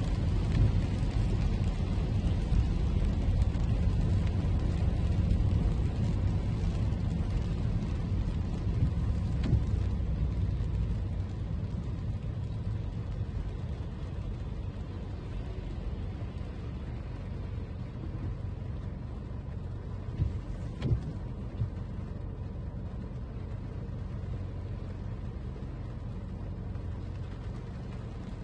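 Toyota Camry driving on rain-wet streets: steady low road and tyre rumble that quietens about eleven seconds in. A couple of brief knocks come a little after twenty seconds in.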